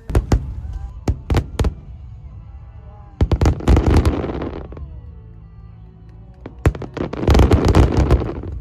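Fireworks going off: a few sharp bangs in the first two seconds, then two spells of rapid crackling bangs, one a few seconds in and another near the end, with a single bang between them. Music plays faintly underneath.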